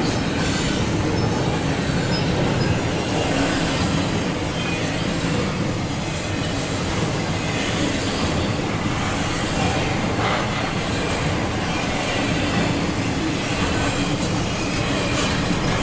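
A Norfolk Southern intermodal freight train's container cars rolling steadily past at close range, the continuous sound of steel wheels on the rails, heard from inside a car.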